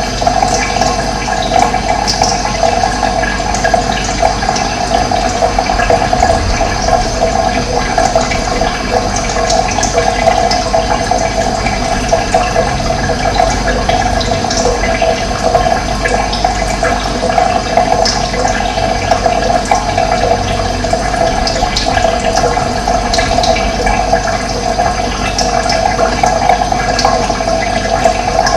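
Running water, a steady dense rush that does not change.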